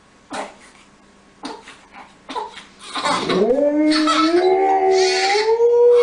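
Siberian husky howling: a long howl that starts about three seconds in, rises and climbs in steps, then holds steady. A baby cries along with it, and a few short sounds come before the howl.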